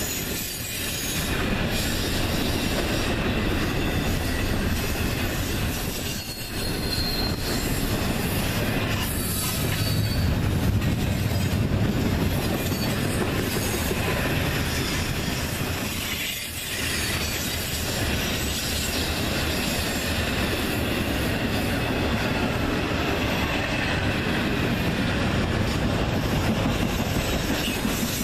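Intermodal freight train's well cars rolling past: a steady rumble and rattle of steel wheels on rail, with brief dips in the noise as gaps between cars go by. Faint high wheel squeal comes and goes.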